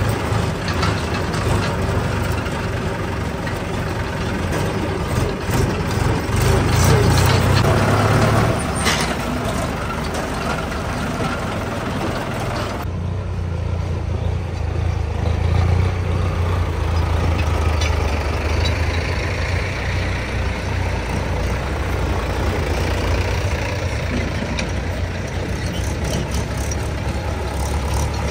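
Mahindra tractor diesel engines running steadily, with a louder stretch about six to eight seconds in. The sound changes abruptly about thirteen seconds in, then goes on as a steady engine drone.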